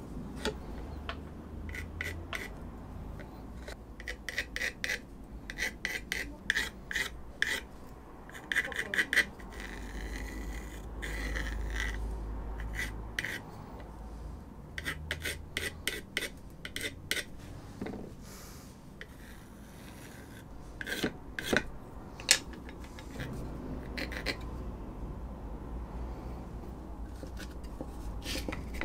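Red pencil scratching across a kydex sheath in quick bursts of short strokes, with pauses between them, as lines are drawn on the plastic; a steady low hum underneath.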